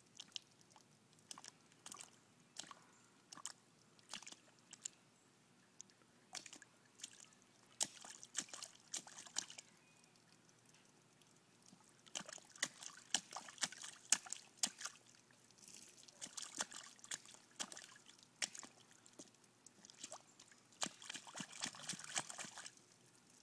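Splashing in a shallow puddle: irregular slaps and splatters of water that come in bursts of a second or two, with short pauses between.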